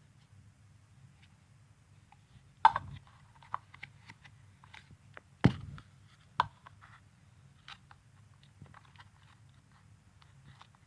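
Stretchy slime being squeezed and pulled by hand: scattered small sticky clicks and crackles, with three louder pops, one about a quarter of the way in and two just past the middle, over a faint steady low hum.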